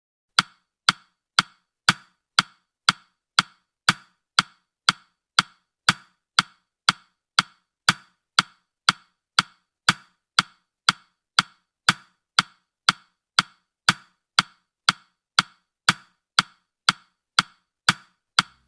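Countdown timer's ticking sound effect: short, even clicks, two a second, in the final seconds of the countdown.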